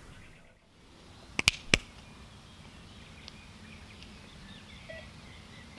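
Two sharp clicks in quick succession about a second and a half in, then faint outdoor background with small bird chirps.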